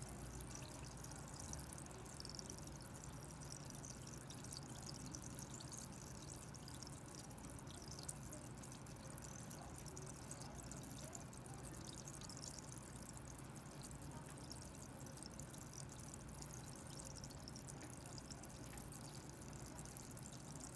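Heavily carbonated sparkling water fizzing in a glass: a steady, fine crackle of countless tiny bubbles popping.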